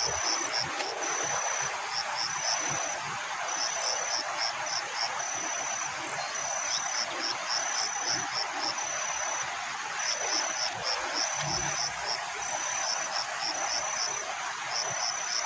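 An insect singing a high-pitched repeating phrase, a held note followed by a few short pips, about once a second, over a steady outdoor hiss.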